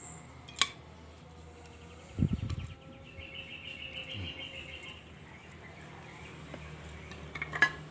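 Handling of an aluminium antenna tube and wooden slats as the tube is pushed through a drilled hole: a dull knock about two seconds in and a couple of sharp clicks near the end. A high buzzing trill runs for a few seconds in between.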